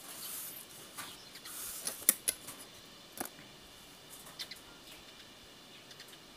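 Plastic drawing instruments handled on paper: a short scrape and rustle, then a few sharp clicks and taps about two to four and a half seconds in, as a plastic set square is put aside and a clear plastic ruler is laid on the page.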